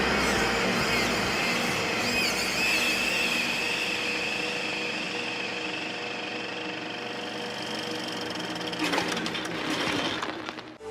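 Steady mechanical din of machinery clattering, with high wavering tones over it in the first few seconds. It slowly fades, with a short run of clicks near the end.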